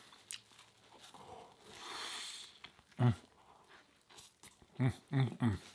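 Biting into and chewing a ciabatta breakfast sandwich, with small clicky mouth sounds. A soft breathy noise comes near the middle, and a few short low hums follow, one about three seconds in and three more close together near the end.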